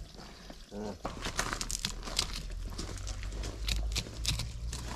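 Knife cutting and scraping through a large amberjack as it is cleaned: a run of short, irregular scraping strokes.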